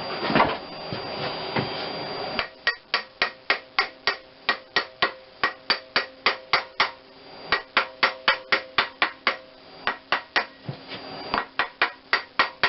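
Rapid metal hammer taps, about four a second in three runs, each strike ringing briefly: a keyed crankshaft pulley being tapped to seat it on the nose of a rebuilt Geo Metro G10 three-cylinder engine's crankshaft.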